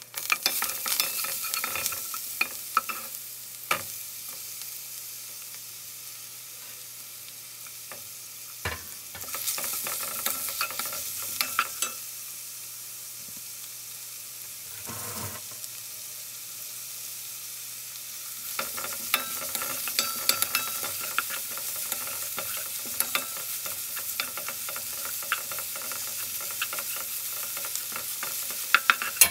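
Minced garlic and sliced onions sizzling in oil in a nonstick frying pan, stirred with a wooden spatula that scrapes and clicks against the pan. The sizzle swells louder at times and eases off in between, with a heavier knock about nine seconds in.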